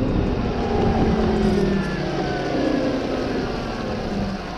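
Electric dirt bike's QS138 motor and chain drive whining, the whine slowly falling in pitch as the bike slows, over a low rumble.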